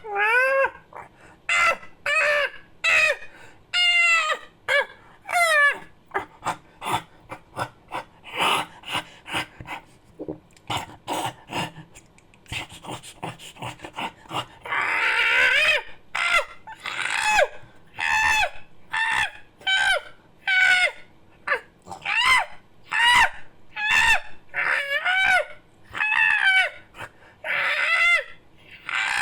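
Monkey-like creature vocal sound effects: a run of short, high hoots and squeals that bend up and down in pitch. In the middle they turn to quick chattering, and about halfway through comes one longer call.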